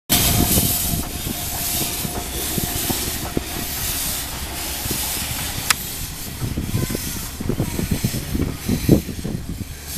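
Isle of Man Railway No. 13 Kissack, a Beyer Peacock 2-4-0 tank steam locomotive, moving slowly with steam hissing in pulses from its open cylinder drain cocks. Low knocks and thumps come from the wheels and running gear, bunching together in the second half, and there is one sharp click about halfway through.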